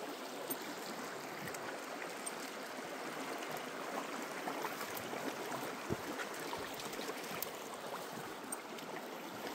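Steady rushing of flowing river water, with a few faint small ticks.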